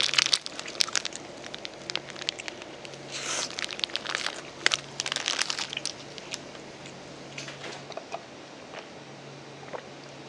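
Close-miked eating sounds: crisp food crunching and crackling with wrapper crinkles. The crunches come thick and fast for about the first six seconds, then thin out to occasional clicks.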